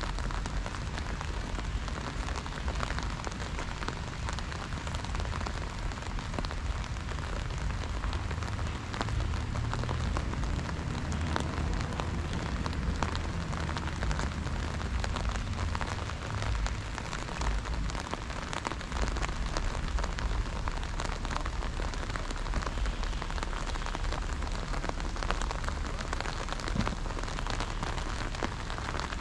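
Steady rain falling on wet stone paving, heard as a dense hiss of many fine drop ticks, with a low rumble underneath.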